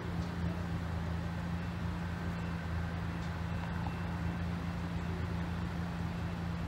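Engine running with a steady low hum and no change in pitch.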